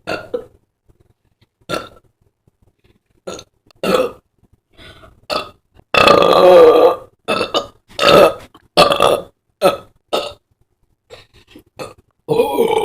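A woman burping loudly again and again: several short burps, one long drawn-out burp of about a second about six seconds in, then a quick run of short burps.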